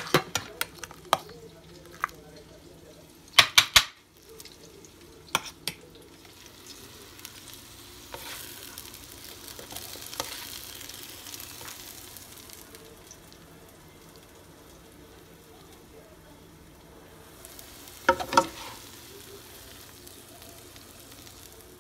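Sliced red peppers and onions sizzling in a frying pan as they are stirred with a slotted spatula. Sharp clicks and knocks come several times in the first few seconds and twice more near the end, and the sizzling is loudest in the middle.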